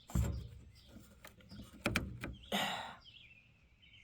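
Handling noise: two dull knocks and a short scrape as the camera and the unit are shifted about.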